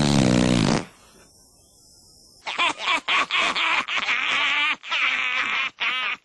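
A low, drawn-out groan that stops just under a second in. After a short quiet, pelican chicks squawk in quick, shrill, broken calls for the rest of the time.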